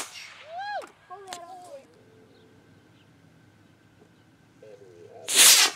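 Model rocket motor igniting about five seconds in: a short, loud whoosh lasting under half a second. Each whoosh is followed by a high rising-and-falling cry; one such cry comes about half a second in, after the tail of an earlier whoosh.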